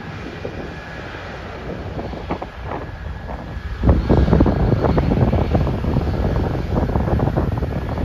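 Wind buffeting the microphone, much heavier from about four seconds in, over the steady drone of a John Deere X9 combine harvesting and a Case Quadtrac tractor pulling a grain cart alongside it.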